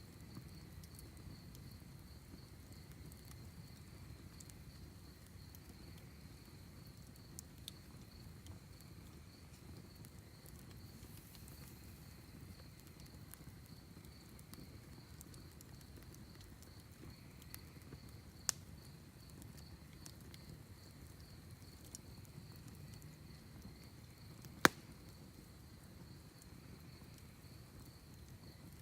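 Campfire burning with a low steady rush and occasional small crackles, plus two sharp pops in the second half, the second much louder. Crickets trill steadily and high-pitched throughout.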